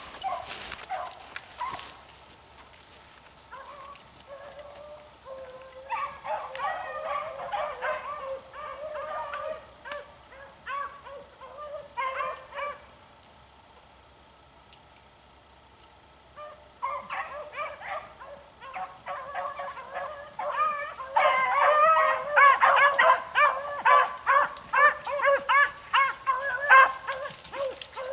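A pack of beagles baying while trailing a rabbit, their repeated calls starting about six seconds in. The baying breaks off briefly midway, then comes back louder and faster toward the end as the chase closes in.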